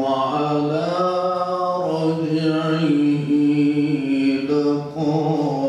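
A man's voice reciting the Quran in melodic tajweed style into a microphone, with long held, ornamented notes and a short breath pause about five seconds in.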